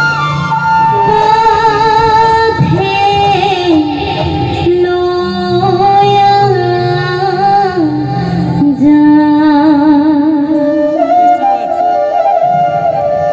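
Women singing a dihanam, an Assamese devotional song, led by one female voice on a microphone with long held, wavering notes that step from pitch to pitch, over a low steady accompaniment.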